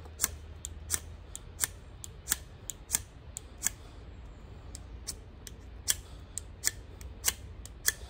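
Knife spine scraped again and again down a small ferro rod: short, sharp rasps about three a second, with a short pause a little past halfway. This is a test of whether the spine will strike the rod, and it throws some sparks, though not many.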